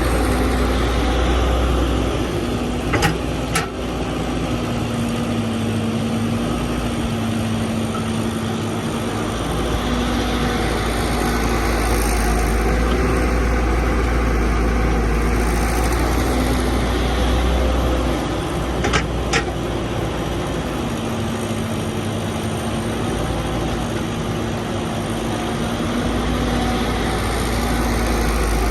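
Excavator's diesel engine running steadily, its deep rumble swelling and easing as it works. Two quick pairs of sharp knocks come about three seconds in and again near the middle.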